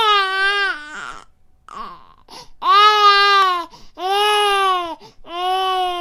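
Infant crying: four loud cries of about a second each, every one holding a fairly steady pitch, with short pauses between them.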